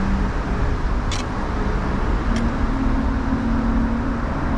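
Steady low engine rumble with a hum that steps up in pitch about two seconds in, and two brief ticks.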